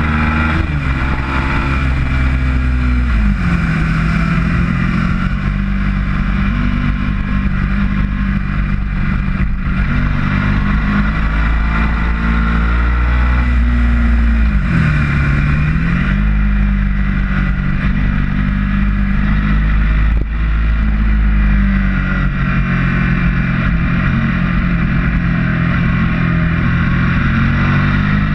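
Ducati motorcycle's V-twin engine heard from onboard at speed, with wind rush. The engine note falls a few seconds in and again about halfway through, each time climbing back up.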